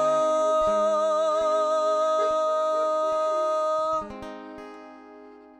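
Ending of a ranchera song: a man's voice holds the last sung note with a wavering vibrato over acoustic guitar. The note cuts off about four seconds in, and the guitar strings ring on and fade.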